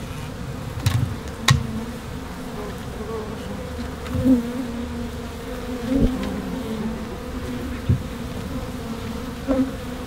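African honey bees (Apis mellifera scutellata) buzzing in a steady hum around exposed brood comb, with a few light clicks along the way.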